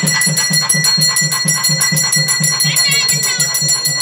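Temple bells ringing steadily over an even, fast drumbeat of about four to five beats a second, as at a temple ritual.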